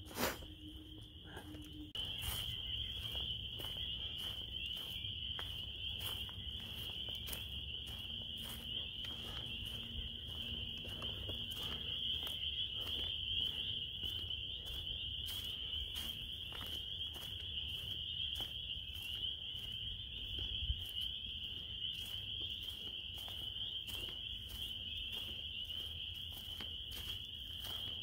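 A chorus of frogs calling in early spring: many high calls blending into one steady, shrill din, which grows louder about two seconds in.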